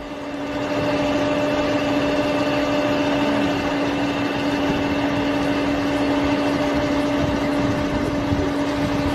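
Engine running steadily with a constant droning hum, picking up slightly about half a second in and then holding even.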